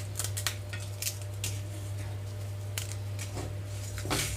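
Wooden spatula stirring seeds, roasted gram and dried red chillies as they dry-roast in a metal kadai, giving scattered light scrapes and clicks, the sharpest near the end. A steady low hum runs underneath.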